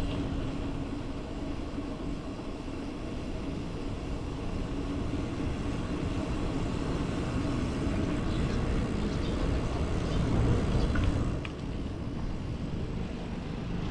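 Steady street and traffic noise heard from a moving bicycle, a low rumbling hiss that swells about ten seconds in and dips briefly just after.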